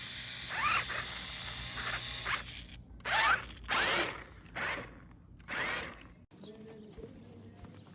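Small electric motor of a toy RC car whining in short throttle bursts, about five times, the pitch rising and falling with each burst.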